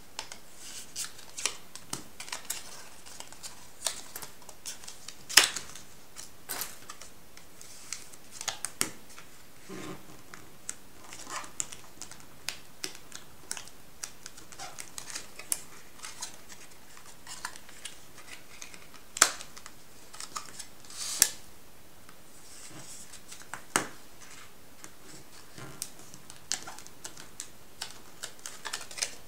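Stiff metallised paper being folded and creased by hand on a tabletop: irregular crisp clicks, taps and crinkles, with a few sharper snaps standing out.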